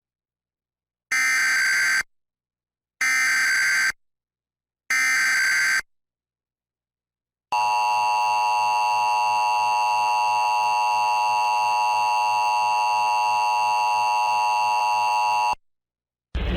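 Emergency Alert System encoder sending the three SAME header bursts, short harsh digital data screeches about two seconds apart, then the steady two-tone EAS attention signal for about eight seconds, cutting off sharply. Together they open a Required Monthly Test of the Emergency Alert System.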